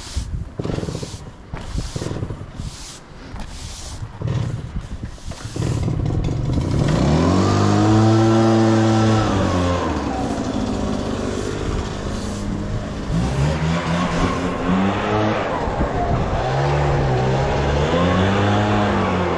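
Gas-powered leaf blower starting up about five seconds in and running, its two-stroke engine revved up and down several times to blow loose turf tines. Before it starts there is a run of short, rough strokes.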